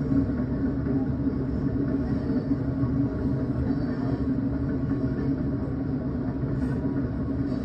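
Norfolk Southern freight train of tank cars rolling past: a steady rumble of wheels on rail.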